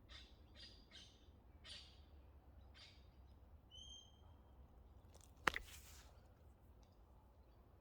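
Wild birds calling: a few short chirps, then a single brief whistled note about four seconds in. A sharp click about five and a half seconds in is the loudest sound.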